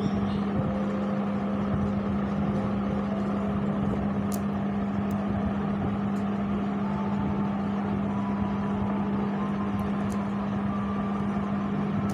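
A steady low hum over an even background hiss, unchanging throughout, with a few faint light ticks.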